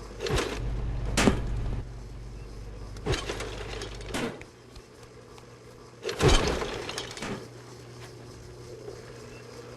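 A series of sharp knocks and thuds, a second or two apart, with the loudest about six seconds in, over a low steady hum that drops out partway through.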